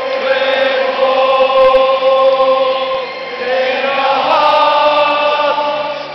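Thousands of Celtic football supporters singing together in long held notes, the tune moving to new notes about halfway through.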